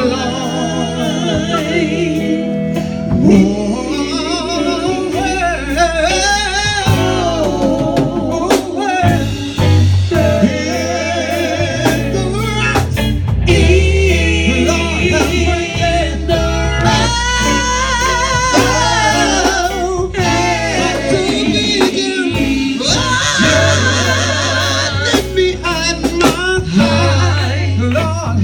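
A man singing a slow southern gospel song with a strong vibrato, over a band's steady bass and instrumental backing.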